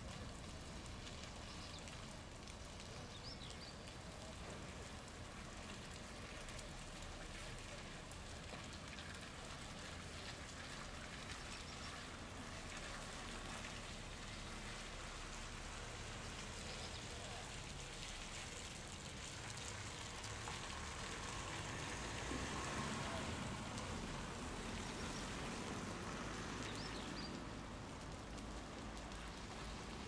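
Steady, faint patter of rain and dripping water in a suburban outdoor ambience after rain, growing a little louder about two-thirds of the way through.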